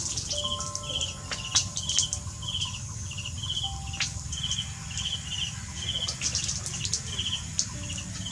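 An insect chirping in a steady rhythm, about two short high chirps a second, with scattered sharp clicks.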